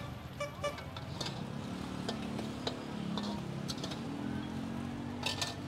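Scattered clicks and taps of cooking utensils at a street-food cart, a few seconds apart, over a steady low hum of street noise.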